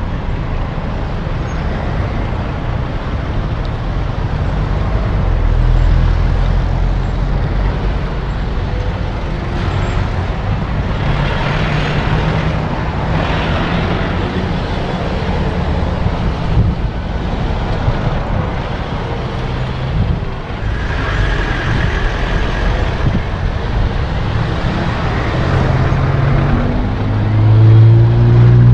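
Motor vehicle engine running steadily with a low rumble, its pitch rising near the end as it revs up.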